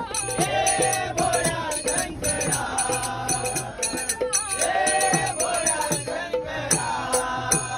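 Men singing a Marathi devotional bhajan together, keeping time with small brass hand cymbals (taal) struck in a steady beat.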